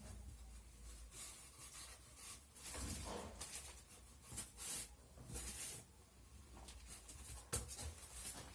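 Irregular rustling and handling noises, with a sharp click or knock about three-quarters of the way through.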